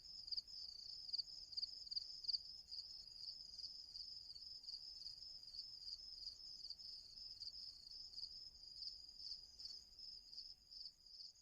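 Crickets chirping: a steady, high, pulsing trill of rapid chirps, about four or five a second.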